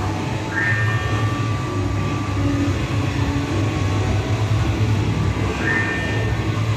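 A coin-operated kiddie carousel ride running: a steady low rumble, with a brief high squeal about half a second in and again near the end.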